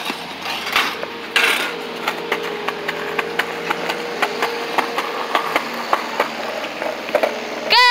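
Skateboard wheels rolling on a concrete sidewalk, giving a run of sharp clicks, over the steady hum of an idling engine.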